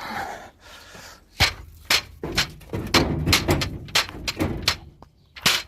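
A string of sharp knocks and thuds, a dozen or so irregular bangs, with the loudest cluster in the middle and one loud bang near the end: things being handled and knocked about.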